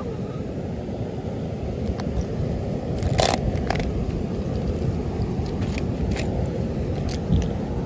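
Steady low rumbling outdoor noise with a few scattered clicks and knocks.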